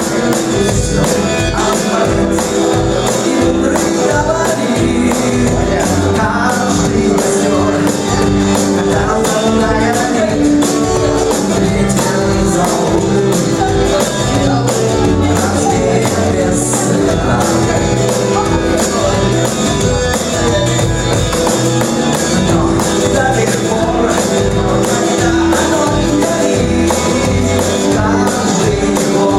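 Live rock band playing a song: bass guitar, drums with a steady beat, guitar and sustained chords.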